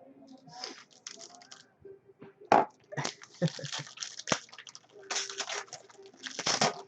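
Crinkling, rustling and clicking of trading-card packaging and cards being handled, in irregular bursts that come thickest in the second half.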